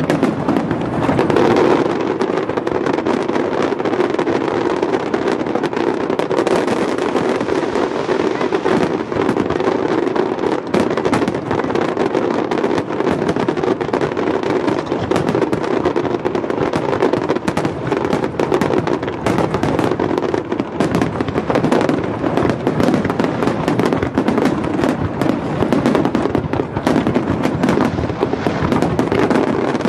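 Aerial fireworks display in a dense barrage: many shells and crackling effects bursting in rapid, overlapping bangs with no pause.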